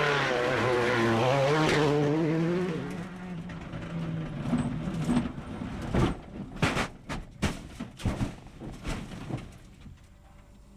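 Rally car engine revving, its pitch rising and falling for the first few seconds, then fading into a quieter stretch broken by a string of sharp, irregular cracks and pops.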